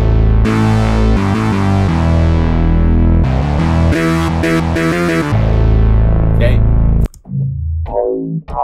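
Synthesizer bass patch built from Behringer Neutron analog synth samples, played as a line of deep held notes that step up and down in pitch. About seven seconds in it stops and a different synth bass starts, its tone sweeping through a band-pass filter.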